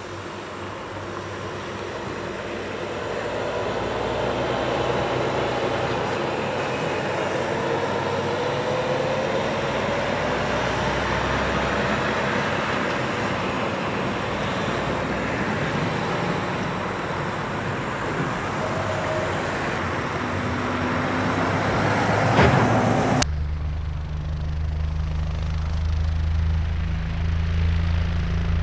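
Heavy log truck with a long empty HCT trailer combination driving past: diesel engine and road noise swell over the first few seconds, with the engine note rising and falling. About three-quarters of the way through, the sound cuts off abruptly to the steady hum of a drone's propellers.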